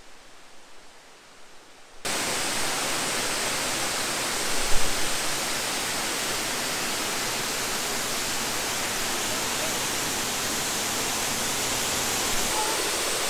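Waterfall rushing: a steady, even noise of falling water that starts suddenly about two seconds in, with a brief thump a couple of seconds later.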